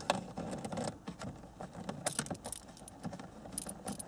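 Screwdriver turning a T20 Torx screw out of a plastic lower dash panel: a run of small, irregular clicks and ticks, with a few brief high squeaks.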